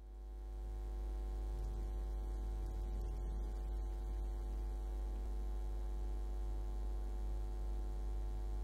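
Steady low hum with a stack of even overtones, fading in over the first second and then holding level.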